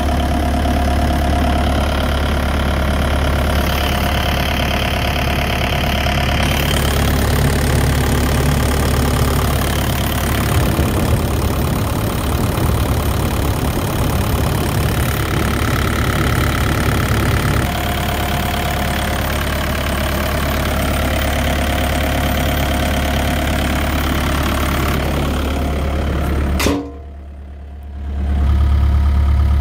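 Kubota four-cylinder diesel engine of a Bobcat 331G mini excavator idling steadily, heard up close at the open engine bay. Near the end the sound drops away suddenly for about a second and a half, then comes back.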